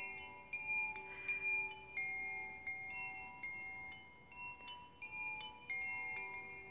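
Chimes ringing, struck at irregular moments, so that several clear sustained tones of different pitches overlap and die away slowly.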